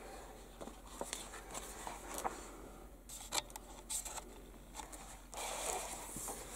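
Paper instruction booklet being handled: faint rustling of the pages with scattered soft clicks, and a longer swish of paper about five seconds in.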